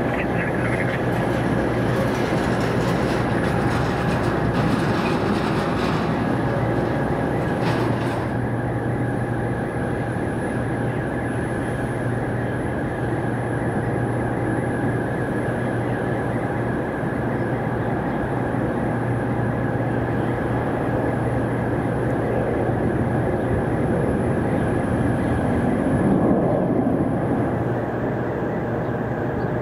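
Jet airliner engines running steadily, a continuous rush with a high thin whine in it: first a Bombardier CRJ-700 regional jet, then, after an abrupt change about eight seconds in, a Boeing 737-700. The sound swells slightly a few seconds before the end.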